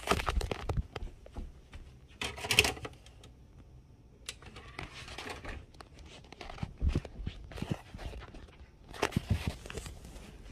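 Handling noise: irregular rustling, scraping and clicks in short bursts, the loudest at the very start and about two and a half seconds in, with another cluster about nine seconds in.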